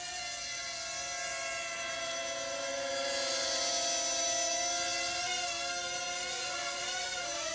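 Small quadcopter's electric motors and propellers whining in flight, a steady buzzing pitch that wavers up and down over the last couple of seconds as the throttle changes.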